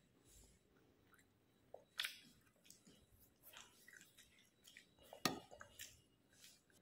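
Faint chewing and small mouth sounds of a child eating flatbread by hand, with short clicks, the clearest about two seconds and five seconds in.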